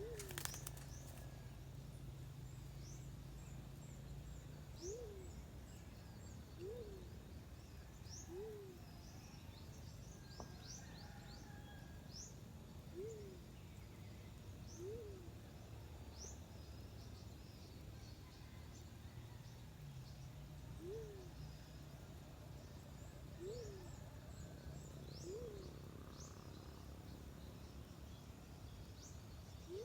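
A dove calls over and over: a single low note that swoops up and down, every couple of seconds in short runs. This fits the black-chinned fruit dove call used to lure the bird. Small birds chirp high and thin in the background, and there is a sharp click right at the start.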